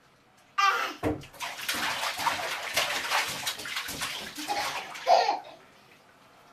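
A toddler splashing bathwater in a bathtub with his hands, in quick irregular splashes that start about half a second in and stop after about five seconds. Short voice sounds from the child come as the splashing starts and again near the end.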